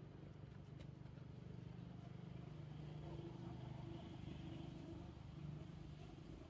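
Faint, steady low hum of a distant engine, with a slightly higher steady tone joining in for a couple of seconds in the middle.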